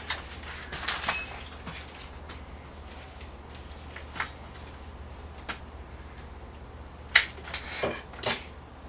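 Drill bits and small metal tools clinking and rattling as they are handled and sorted by hand. The loudest is a ringing metallic clink about a second in, followed by a few scattered lighter clicks.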